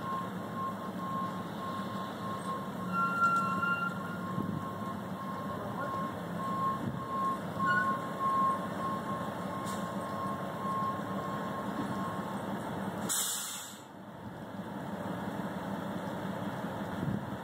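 Dump truck backing up: its reversing alarm sounds a steady run of evenly spaced beeps over the diesel engine running. Near the end the beeping stops and the air brakes give a short, loud hiss as the truck halts.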